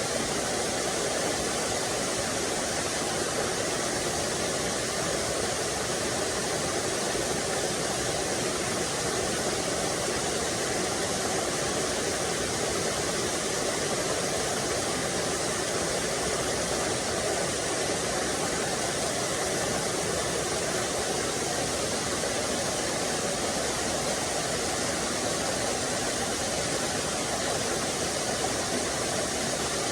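Small waterfall splashing into a stream: a steady, unbroken rush of falling water.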